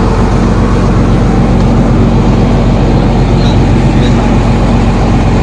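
Passenger tour boat's engine running steadily while underway: a loud, even low drone with a rush of noise over it.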